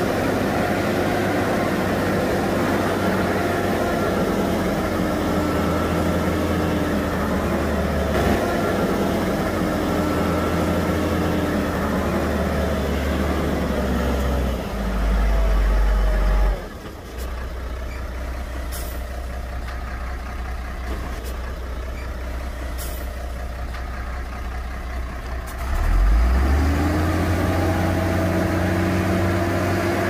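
Shantui bulldozer's diesel engine running under load, its pitch shifting, with a deeper rumble just before it drops suddenly to a quieter idle about 17 seconds in. A few faint clicks come during the idle, then the engine revs up again about 26 seconds in.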